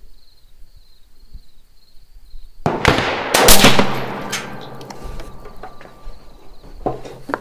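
Rifle fire from an AR-style precision rifle: a sharp shot about two and a half seconds in, then a second, louder bang under a second later that rings and rumbles on for a few seconds. A smaller report follows near the end.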